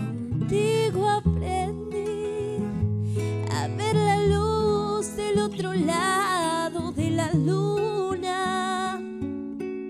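A woman singing a slow Spanish-language ballad with vibrato, accompanied by a fingerpicked classical guitar. The voice drops out near the end, leaving the guitar alone.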